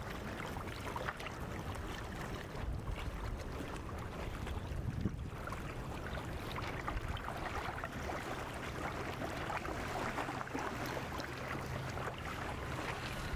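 Wind buffeting the microphone over a steady wash of water, with a faint low steady hum underneath.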